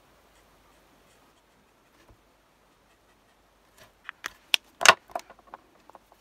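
A quiet stretch, then from about four seconds in a quick run of sharp plastic clicks and taps, the loudest about five seconds in: alcohol marker caps being snapped on and off and markers set down and picked up from the desk.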